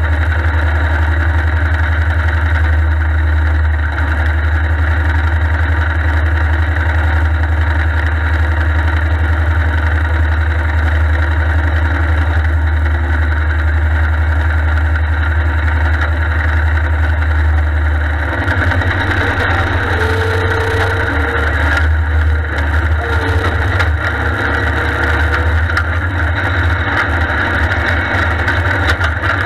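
Allis-Chalmers 160 tractor's three-cylinder Perkins diesel engine running steadily close to the microphone as the tractor drives through snow. Its low note turns uneven and pulsing about two-thirds of the way through.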